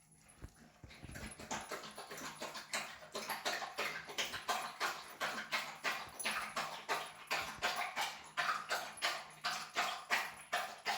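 A dog lapping water from a bowl: a steady run of quick wet laps, about three a second, starting about a second in.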